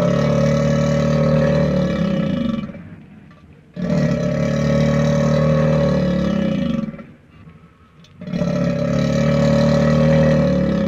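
A large animal roaring: three long, deep roars of about three seconds each, the pitch dropping as each one ends.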